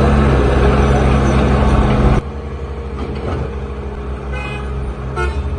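Heavy earthmoving machine's engine running loud and steady, then suddenly much quieter about two seconds in, with a short higher tone about four seconds in.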